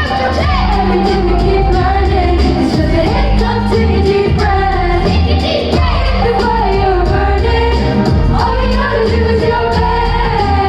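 Pop song performed by a band: a singer's melody over a steady drum beat and heavy bass.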